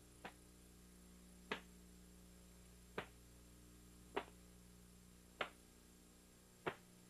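Six short sharp snaps, evenly spaced about every second and a quarter, from a taekwondo form being performed, each marking a block or strike, over a faint steady hum.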